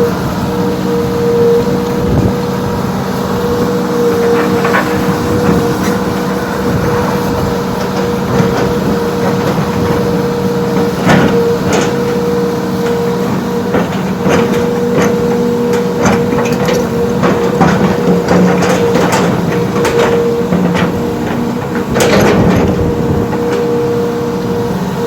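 Heavy earthmoving machine running steadily under load, with a steady whine. Repeated sharp clanks and knocks of metal and rock come through it, most often in the second half.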